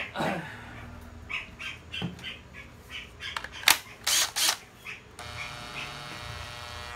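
Clicks, knocks and rustles as a cordless drill is handled, then about five seconds in its motor starts and runs with a steady whine.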